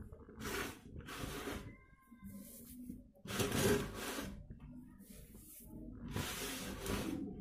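Dry sand crumbling and collapsing into water, in four separate hissing, rustling bursts, the loudest a little past the middle.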